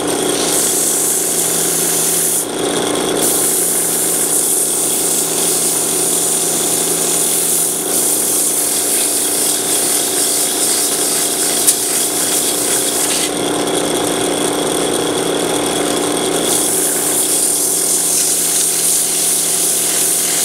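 Drill press running steadily, its motor's steady hum under a high, rasping hiss of the spinning tool working a piece. The hiss drops out briefly about two and a half seconds in and again for about three seconds past the middle.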